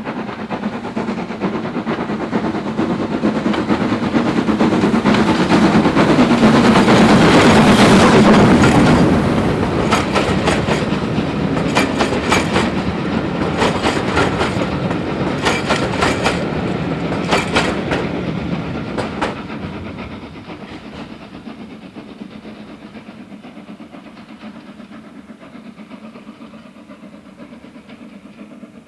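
LSWR S15 4-6-0 steam locomotive No. 506 working a passenger train under steam, loudest as it passes close by about eight seconds in. Its coaches follow with sharp clicks over the rail joints, and the sound then fades away.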